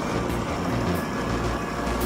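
Heavy machinery running steadily at a constant low pitch, with a few faint crackles over it.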